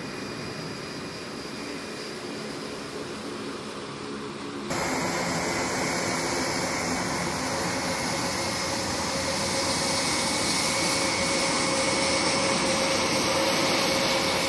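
Turboprop engines of a taxiing C-27J Spartan, a steady propeller hum in several low tones. About five seconds in, it cuts to the louder, noisier sound of an Airbus A400M's four turboprops taxiing past, growing gradually louder.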